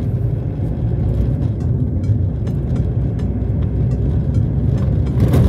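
Car driving on an unpaved dirt road, heard from inside the cabin: a steady low engine and road rumble with scattered small knocks and rattles.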